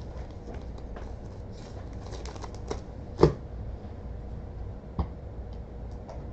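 1998 Topps Gold Label football cards and foil packs being handled on a desk: light rustles and clicks, with a sharp knock a little over three seconds in and a smaller one about five seconds in as they are set down.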